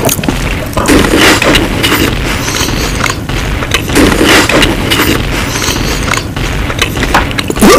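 A dense jumble of many short meme sound clips playing over one another: booms, thuds, snatches of voices and music layered into one loud mix.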